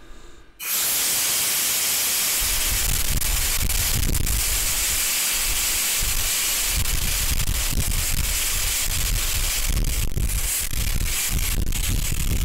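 Compressed air blowing out of a freight train's main brake pipe through the opened end cock on the last wagon, a loud hiss that starts suddenly about half a second in and then holds steady. The brake pipe is being vented for the brake test, so the train's air brakes apply.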